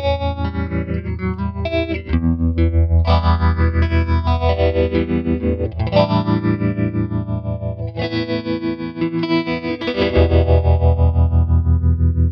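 Electric guitar chords played through an MXR Phase 90 phaser into a Tyler amp's tremolo, giving a fast, even pulsing swirl that imitates a Leslie rotary speaker. Fresh chords are struck about every two seconds.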